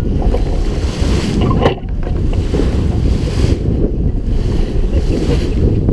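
Heavy wind buffeting the microphone over the rush and splash of water along a sailboat's bow as it crosses a wake, with one sharp knock about a second and a half in.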